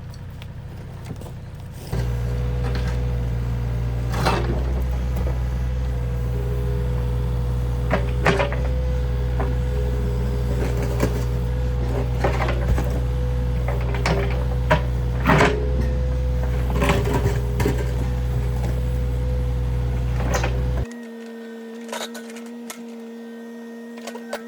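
John Deere 35D mini excavator's diesel engine running with a steady hydraulic whine, with repeated short knocks and clunks as it moves broken concrete. About 21 s in the deep engine sound drops out abruptly, leaving a thinner steady whine.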